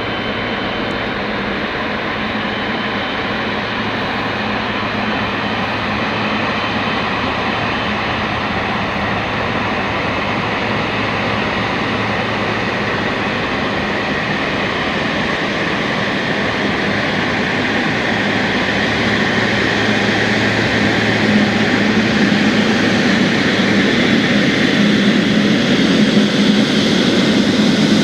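Boeing 777F's twin GE90-110B1L turbofans running at taxi power: a steady jet engine noise that grows gradually louder over the last third.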